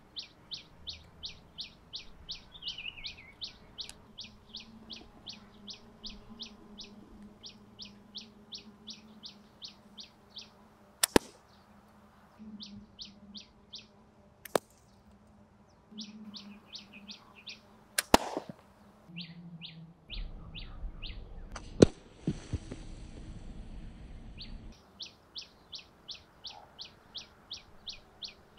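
A few sharp cracks as a homemade bamboo slingshot shoots iron-rod arrows, some heard as quick double snaps. Behind them a bird calls steadily in short, high chirps, about three a second, with brief pauses.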